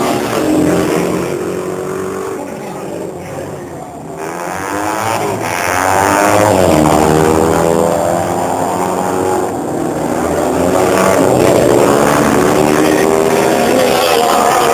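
Classic racing sidecar outfits' engines at high revs. One fades as it moves away over the first few seconds, then engines rise again in pitch and loudness as more outfits accelerate past.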